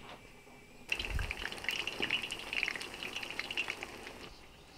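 Battered potato pakoras deep-frying in a pot of hot oil, a steady sizzle full of fine crackles. It starts abruptly about a second in with a soft low thump and dies away near the end.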